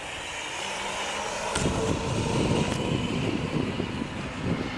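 Twin-motor RC racing boat running out on the water, a faint steady high whine. Wind buffets the microphone from about a second and a half in.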